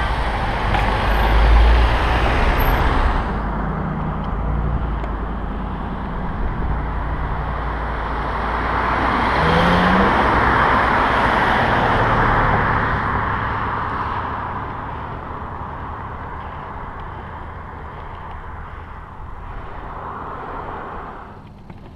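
Wind rushing over a bicycle-mounted camera's microphone while riding, with road noise. The noise swells about ten seconds in as a car passes close alongside, then eases off.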